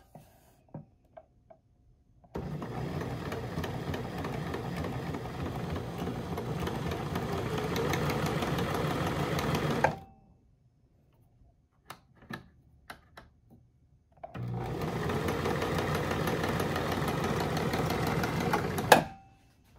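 Janome 3125 sewing machine running under its electronic foot pedal, in two steady runs of several seconds each, the first growing a little louder as it goes. A few light clicks fall between the runs, and a sharp click comes as the second run stops.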